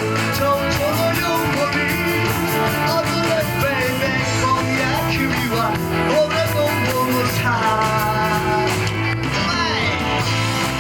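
Rock music with drums, guitar and singing, loud and steady.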